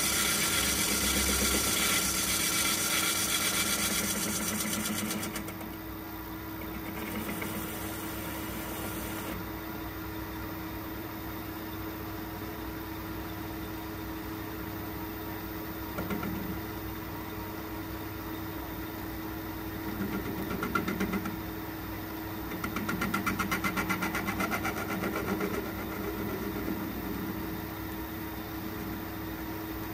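Metal-turning lathe running with a steady hum while it turns a bronze brake-cylinder casting. For the first five seconds or so there is the louder hiss of the tool cutting. The machine then runs quieter, and bursts of cutting noise return from about twenty seconds in.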